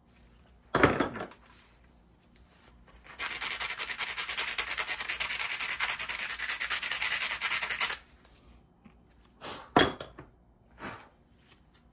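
A flint edge being abraded with a rubbing stone: a steady, rapid stone-on-stone scraping for about five seconds, preparing the striking platform before a thinning flake is struck. A sharp knock comes about a second in, and a few short clicks near the end.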